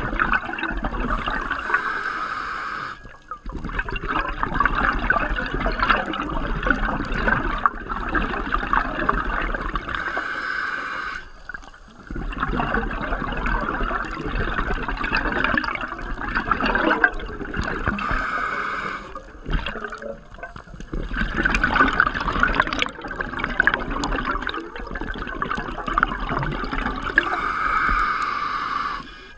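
Scuba diver breathing through a regulator underwater: hissing breaths and bubbling exhalations in cycles of about one breath every eight seconds, with short pauses between.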